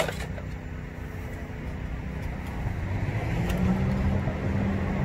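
A motor vehicle's engine running with a steady low hum, growing louder over the second half.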